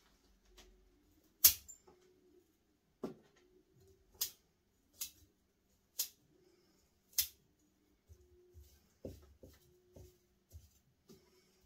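Bonsai scissors snipping shoots off a young white spruce: six sharp cuts about a second apart, followed by softer clicks and light handling of the branches.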